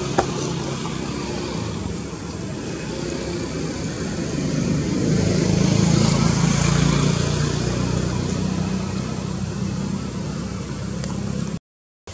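Steady rumble of motor vehicle traffic, swelling to its loudest about halfway through, then cutting off suddenly just before the end.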